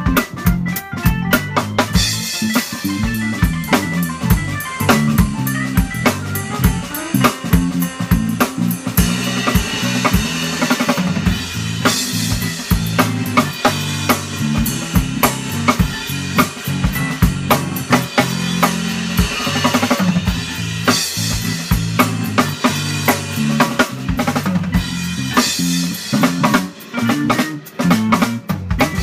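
A small band playing an instrumental piece live: an acoustic drum kit (snare, bass drum and cymbals) keeps a steady beat over a digital piano and a guitar.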